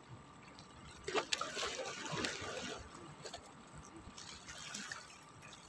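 Small sea waves lapping and splashing against breakwater rocks, with a louder splash about a second in that washes off over the next couple of seconds.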